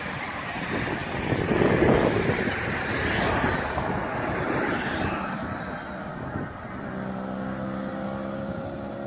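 Race-convoy vehicles, a team car and a motorcycle, passing close by on the road: tyre and engine noise swells about two seconds in and fades away. A steady humming tone starts near the end.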